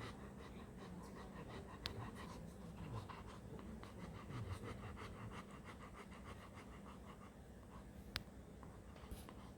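German Shepherd dog panting quickly and evenly, at about four to five breaths a second.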